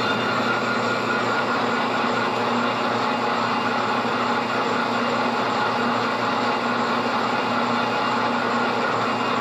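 Milling machine spindle turning a boring head at about 90 RPM while it bores a piston's wrist pin boss: a steady machine hum with several steady whining tones.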